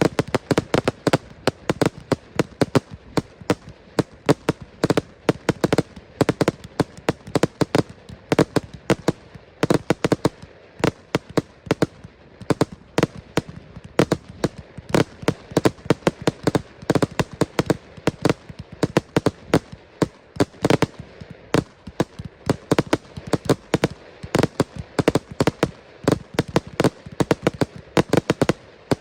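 Large display fireworks going off in a rapid, continuous barrage of sharp bangs and cracks, several a second, without pause.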